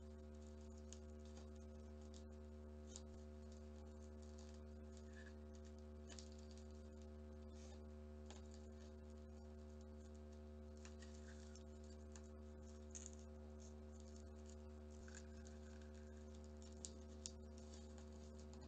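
Faint crinkling and ticking of red origami paper being folded and pressed into creases by hand, a couple of sharper ticks near the end, over a steady low hum.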